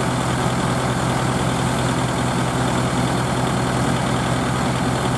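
Diesel tractor engines idling steadily: a Mahindra 475 DI hitched in front of a Kubota L4508.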